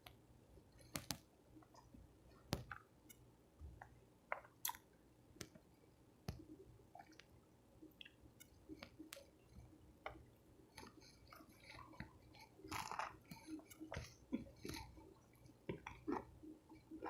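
A person chewing soft tacos close to the microphone: irregular wet mouth smacks and clicks, with a busier run of chewing about two-thirds of the way through.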